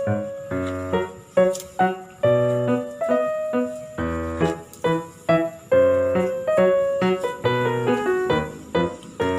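Background music: a piano-like keyboard melody of repeated struck notes.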